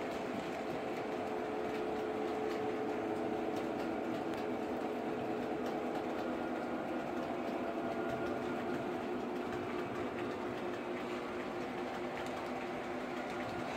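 OO gauge model trains running on the layout: a steady whirring hum from the models' electric motors, with faint ticking of wheels over the track.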